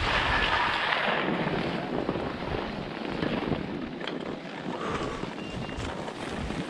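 Wind rushing over the microphone of a skier's camera during a downhill run, with the hiss and scrape of skis on snow underneath; loudest in the first second, then settling a little.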